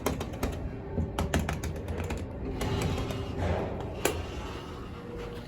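KONE elevator car setting off upward: a quick run of clicks and clatter from the doors and machinery, then a rattling travel noise with one sharp click about four seconds in, and a faint steady hum near the end.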